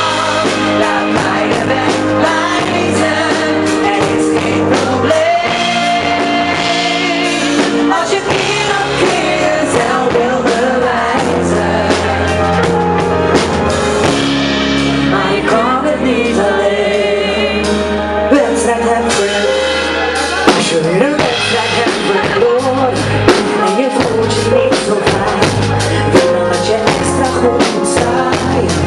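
Music with singing: a live band and a singer performing a song, with long held sung notes over a steady beat.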